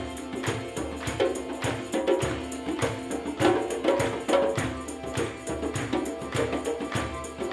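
Live acoustic music: a violin bowing held notes over hand drums beaten in a steady rhythm.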